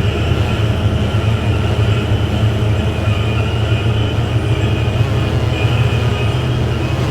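Industrial drone music: a loud, steady low rumbling drone with thin high whining tones held above it, much like the sound of a train.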